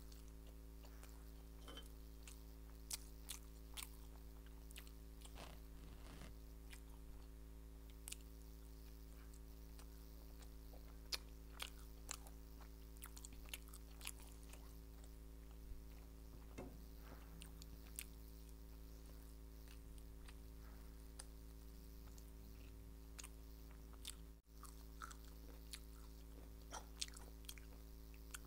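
Close-miked chewing and biting of soft steamed momos: faint wet mouth sounds with scattered small clicks and smacks, over a steady low hum.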